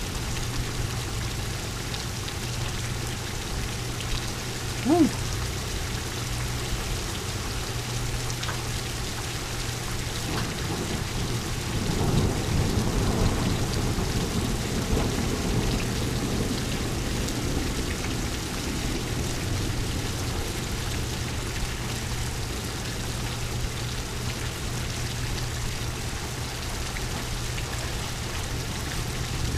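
Steady rain falling during a thunderstorm, with a rolling rumble of thunder that swells about twelve seconds in and fades over several seconds. A brief rising squeak about five seconds in is the loudest moment.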